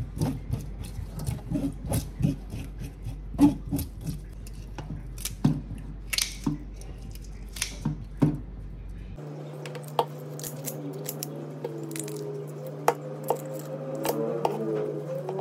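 Knife scraping the scales off ikan puput fish: a quick run of short scrapes and clicks, several a second. About nine seconds in the sound changes abruptly to a steady low hum with a faint wavering tone over it and only a few scattered knocks.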